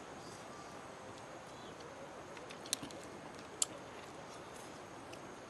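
Quiet eating of noodles by hand over a low steady background hiss, with two short faint clicks about a second apart.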